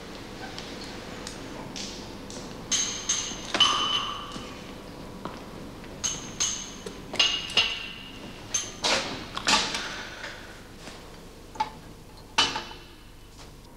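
Small drinking glasses and a bottle clinking: about a dozen sharp, ringing glass-on-glass clinks in three clusters, as glasses are handled and set down on a glass-topped table.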